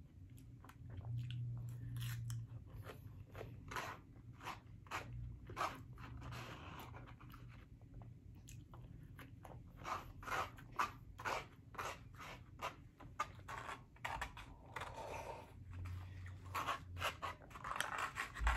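Close-up chewing of crisp raw salad, a quick, uneven run of crunches all the way through.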